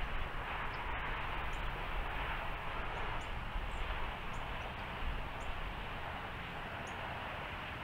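Steady outdoor rumble and hiss, with faint, very high, thin bird calls repeating about once a second.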